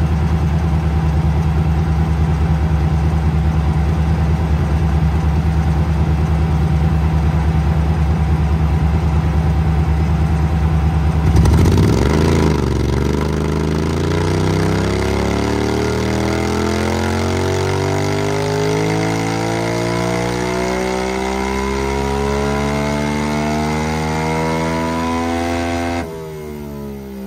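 Yamaha R7's 689 cc parallel-twin engine, breathing through an M4 exhaust, running on a roller dyno. It holds a steady pulsing note for about eleven seconds, then climbs in one long smooth rise in revs under load, a dyno power pull. Near the end the throttle shuts and the revs fall away.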